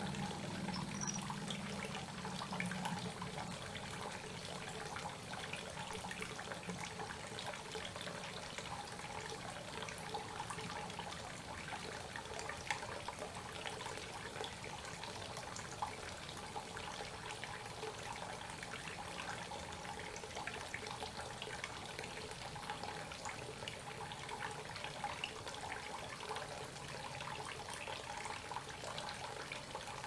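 Creek water flowing and trickling over rocks, a steady, even rush.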